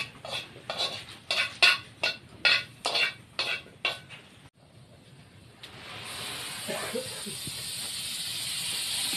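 A run of short, sharp strokes, about three a second, stops about four and a half seconds in. After a brief pause, a steady sizzling starts and slowly grows louder, as food hits a hot pan.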